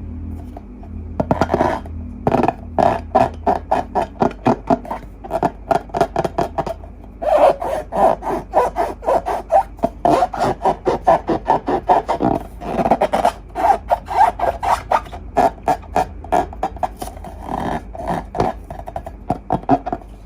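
Quick, repeated rubbing or scraping strokes, about three or four a second, starting a little over a second in, with brief pauses around seven and twelve seconds in.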